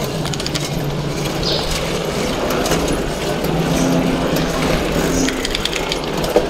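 Bicycle riding over a rough concrete path: steady tyre and rolling noise with scattered clicks and rattles from the bike.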